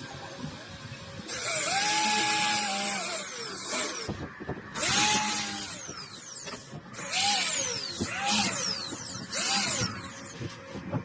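Handheld electric power tool working wood in several bursts. Its motor whine rises and sags in pitch each time as it bites in, under a coarse grinding noise.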